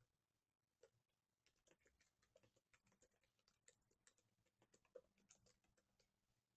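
Very faint typing on a computer keyboard: quick, irregular key clicks.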